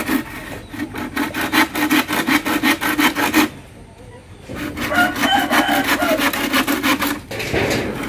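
Hand saw cutting through a long wooden pole with quick, rhythmic back-and-forth strokes; the sawing stops for about a second midway, then starts again.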